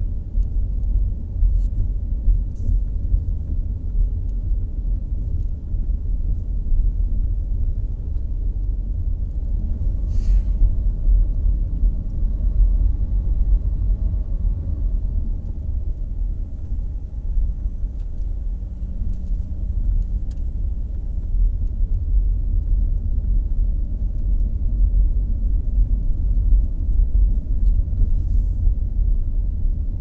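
Steady low rumble of a car being driven, heard from inside the cabin: engine and road noise while moving.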